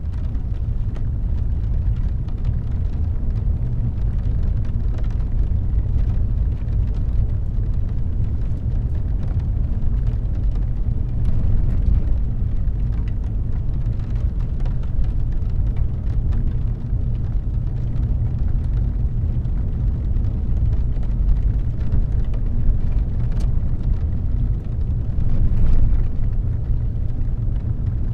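Car driving on a wet road in rain, heard from inside the cabin: a steady low rumble of tyres and engine, with faint scattered ticks of raindrops hitting the windshield.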